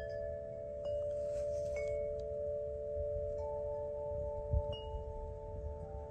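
Chimes ringing: several long, overlapping tones, struck anew every second or so, over a low rumble, with a single low thump about four and a half seconds in.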